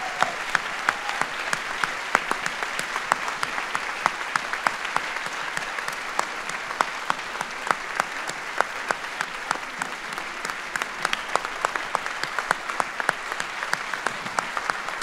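Audience applauding steadily, a dense patter of many hands clapping with some louder single claps standing out.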